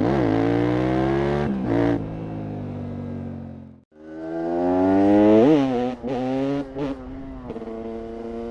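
KTM 690 SMC R's single-cylinder engine through a de-catted exhaust, revving hard in two runs, its pitch climbing and briefly dropping back as at gear changes. The first run cuts off suddenly about four seconds in and the second starts straight after, peaking about a second later before settling to a steadier note.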